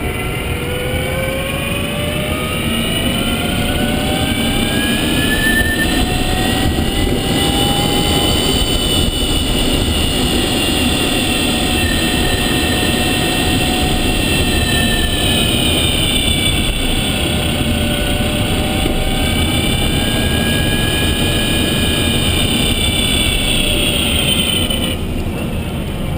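Renault Zoe Q210's electric drive motor whining while driving, several pitches rising together as the car speeds up over the first several seconds, easing and climbing again, then dropping near the end, over a steady rumble of road and tyre noise.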